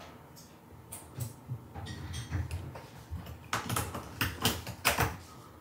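A cat's claws scratching a corrugated cardboard scratcher bowl: a few separate scrapes at first, then a quick run of strokes about three and a half seconds in.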